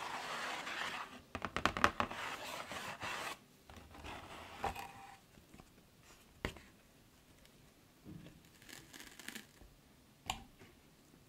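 Cardboard donut box being opened: a stretch of tearing and scraping with sharp clicks for about three seconds, then softer rustles and a few light taps on the cardboard.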